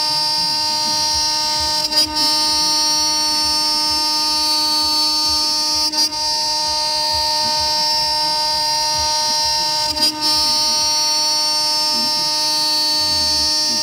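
CNC router's GDZ-80 2.2 kW spindle whining steadily as its end mill cuts a pocket into a 20 mm aluminium plate. The sound breaks briefly about every four seconds.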